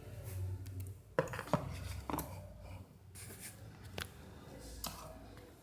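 Handling noise as a phone is turned over in the hands: a few light clicks and taps with some rubbing, the sharpest two about a second in.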